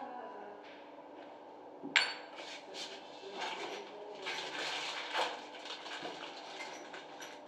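Small metal fittings clinking and a plastic packet crinkling while parts for a concealed shower valve are handled, with a sharp click about two seconds in.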